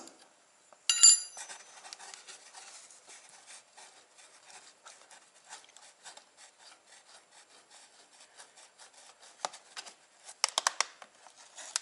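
A ratchet wrench clicking as it unscrews the drain plug on a Dnepr motorcycle's rear final-drive housing. It starts with a sharp metallic clink about a second in, then gives a long run of rapid, faint clicks, with a few louder clicks near the end.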